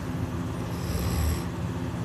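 A person snoring: one snore lasting under a second, near the middle.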